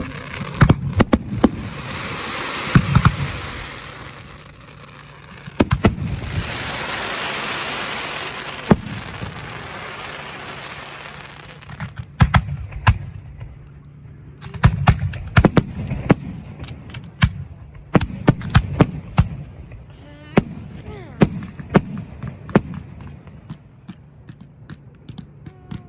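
Fireworks going off: many sharp bangs and cracks, with long hissing, crackling stretches from about 1 to 4 s and 6 to 12 s, then a quick run of pops and bangs after that.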